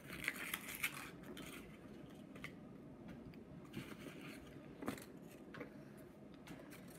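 Paper ice cream cone wrapper being crumpled in the hands, a crisp crackling in the first second and a half, followed by a few faint scattered clicks.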